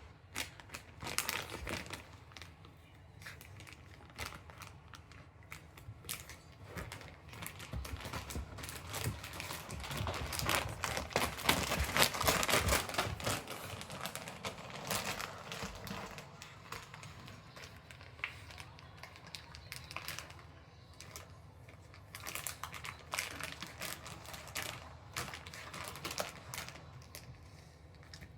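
Plastic jerky-treat bag crinkling and crackling as a Shiba Inu works at it, trying to get it open. The crackling comes in irregular spurts and is busiest and loudest about halfway through.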